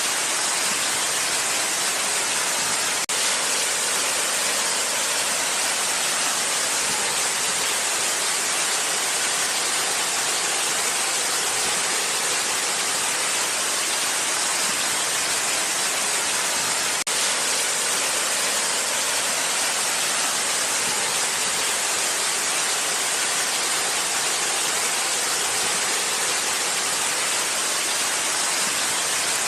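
Waterfall: a steady, unchanging rush of falling water, a hiss that sits mostly in the upper range.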